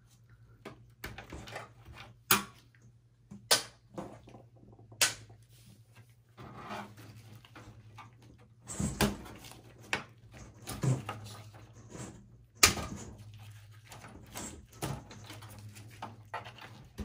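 Scattered sharp clicks and knocks of gloved hands handling cable connectors, plastic parts and a screwdriver inside a steel desktop PC chassis, the loudest click about two-thirds of the way through.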